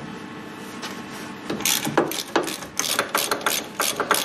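Socket ratchet clicking in quick, irregular runs as a loosened front brake caliper carrier bolt is wound out. The clicking starts about a second and a half in.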